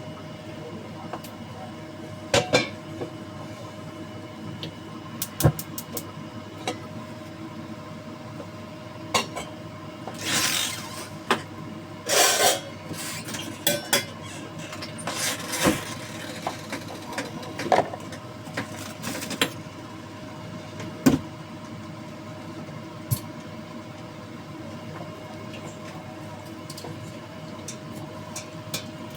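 Kitchen handling sounds: scattered clinks and knocks of pots, dishes or utensils, with a few brief scrapes or rustles about a third of the way in, over a steady background hum.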